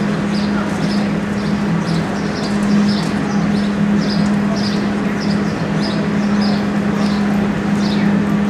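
Steady background of a large indoor arena: a constant low hum under a continuous rush of noise, with short high chirps repeating about twice a second.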